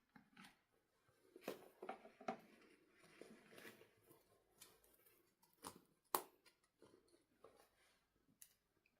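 Faint handling noises of toys and packaging: scattered light clicks, taps and rustles, with the sharpest click about six seconds in.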